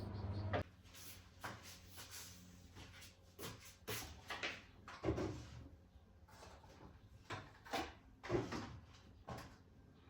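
A string of light, separate knocks and clicks, about a dozen spread unevenly through the stretch: household objects, drawers or cupboard doors being handled.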